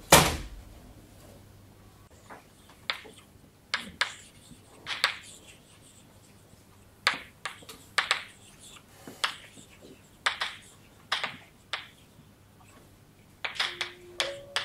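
A loud knock at the very start, then sharp light taps about once a second, often in quick pairs, over quiet room tone.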